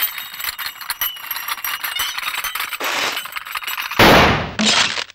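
Cartoon sound effects of something cracking like glass or porcelain: a run of small clicks and crackles, then louder crashing bursts in the last second or so, as of it starting to shatter.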